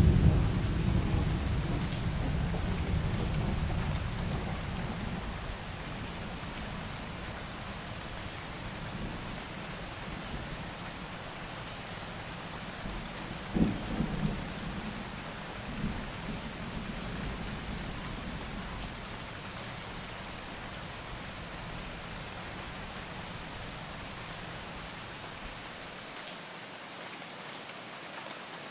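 Steady rain with a roll of thunder that fades over the first few seconds, and a couple of short low thumps about halfway through.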